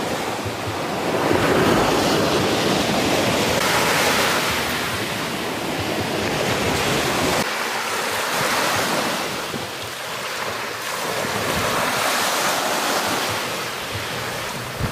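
Sea surf washing onto a sandy beach, a steady rush of noise that swells and eases every few seconds as waves come in, with wind buffeting the microphone.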